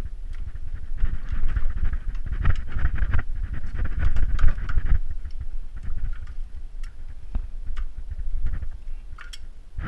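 Close handling noise of gloved hands and tools working in an engine bay: rustling, rubbing and scattered small metal clicks, busiest from about one to five seconds in.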